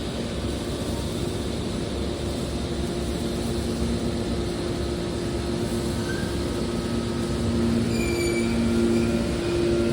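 Mobile car baler running: a steady machine drone with a low hum that grows louder about eight seconds in, joined by a few short high squeals.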